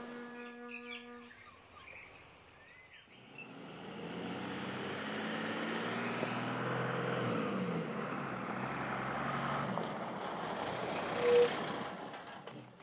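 A bus engine running as the bus waits, its pitch dipping a little partway through, with birds chirping over it. A brief loud toot comes near the end.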